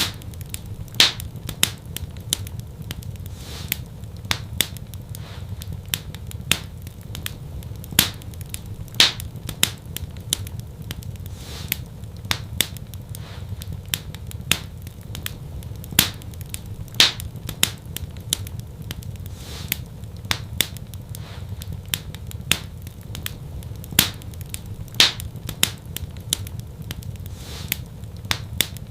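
Wood fire in a fireplace crackling, with frequent sharp pops and snaps over a steady low rumble of the flames.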